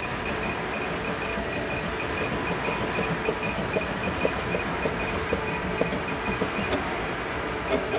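Juki AMS-210EN pattern sewer tracing its stitch pattern with the plus key: the feed drives the clamp step by step over a steady machine hum, with a rapid, even high-pitched beeping about four times a second and light mechanical ticks.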